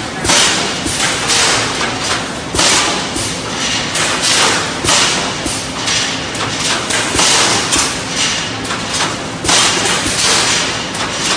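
Automatic wire mesh panel welding machine running its resistance welding cycle: a loud hissing crackle with a thud about every two and a half seconds as the electrodes clamp and weld a cross wire onto the line wires, with weaker bursts between.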